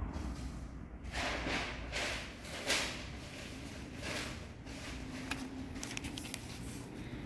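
Soft swishing and rustling handling noise from a hand-held camera moving, several brushes in the first few seconds, then a quick run of light clicks, over a low steady hum.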